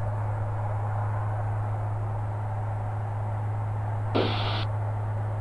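Steady drone of a Maule light aircraft's engine and propeller heard inside the cabin, with a short burst of radio static about four seconds in.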